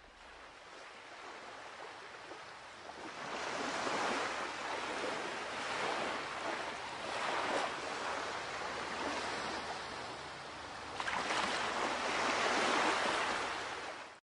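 Airliner cabin noise during the climb after takeoff: a steady rushing hiss of airflow and jet engines. It swells a few seconds in, eases briefly, swells again and cuts off suddenly at the end.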